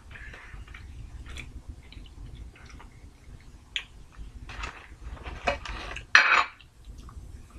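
Tabletop handling noises while eating: scattered rustling and light clicks as a sandwich, paper food wrappers and a utensil in a jar are handled, with the loudest short rustle about six seconds in.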